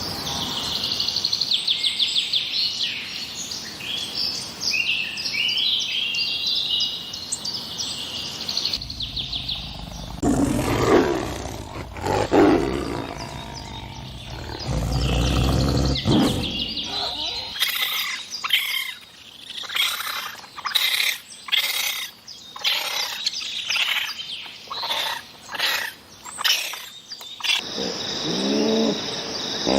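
A run of different animal calls: rapid high bird chirps, then deep roars, then a quick series of sharp calls, and near the end a high steady whistle over lower calls.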